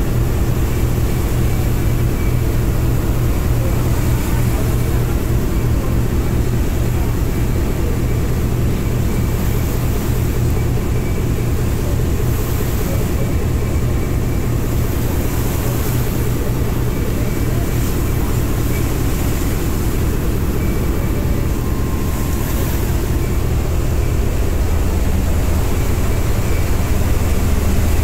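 Harbour ferry's engine running steadily under way: a loud, even low drone with a fine rapid pulse, with a hiss of water and wind over it.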